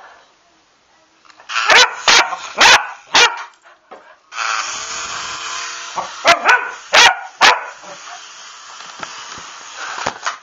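A small dog barks sharply four times in quick succession, then four more times a few seconds later. A little before halfway, the steady whir of a small electric RC helicopter's rotor starts up and runs under the later barks.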